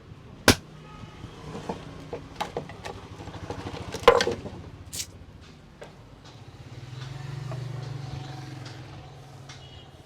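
Sharp hand slaps and claps of a barber's head and back massage, a handful spread out with the loudest about four seconds in, over the low hum of road traffic that swells near the end.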